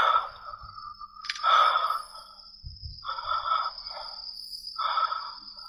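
A person breathing heavily into the microphone: four short sighing breaths about a second and a half apart, over a thin steady high tone.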